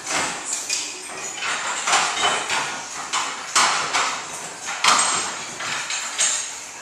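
Irregular clattering and knocking of Pilates reformer carriages and their springs as several people push the sliding carriages back and forth, about one to three knocks a second.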